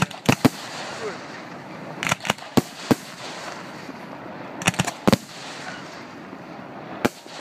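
Aerial firework shells bursting: a series of sharp bangs in small clusters, about ten in all.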